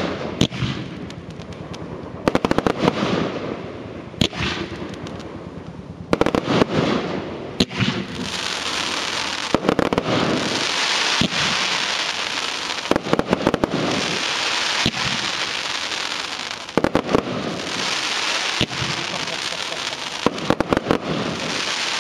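Evolution Fireworks Mega Willows compound cake firing: clusters of sharp bangs as shots launch and burst, coming every couple of seconds. From about eight seconds in, a steady hissing crackle fills the gaps between them.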